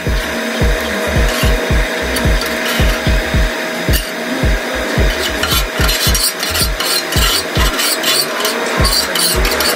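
Background hip-hop music: a deep bass drum that drops in pitch on every hit, several hits a second, with quick hi-hat clicks over it.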